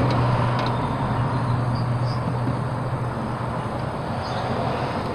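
A steady low hum over an even background rush, with a few faint small clicks.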